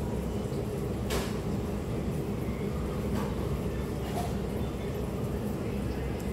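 Steady low rumbling hum with a few faint brief clicks.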